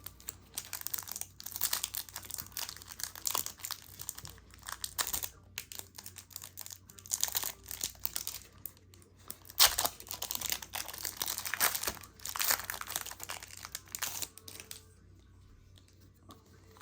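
Foil Pokémon TCG booster pack being torn open and crinkled by hand: irregular bursts of crackling foil with one sharp, loudest crinkle about ten seconds in. The crackling stops a couple of seconds before the end.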